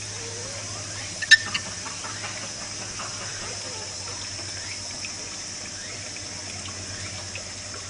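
Steady hissing outdoor background noise with a low hum underneath, broken by one sharp click a little over a second in.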